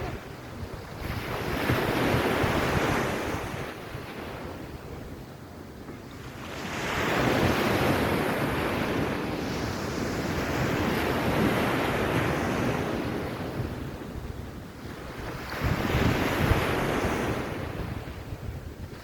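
Sea waves washing onto a beach, swelling and falling away in three long surges, with wind rumbling on the microphone.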